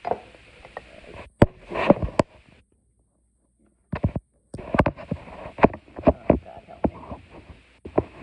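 Handling noise at the phone's microphone as the phone is set up and moved: an irregular run of knocks, bumps and rustles. The sound cuts out completely for over a second partway through.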